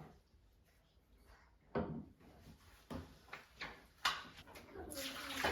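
Several separate knocks and clatters of household objects being handled, then water starts running from a tap near the end.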